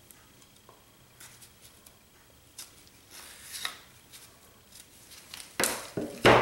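Handling noise during the putty repair on the wood: faint scraping and small taps, then a few sharp knocks near the end.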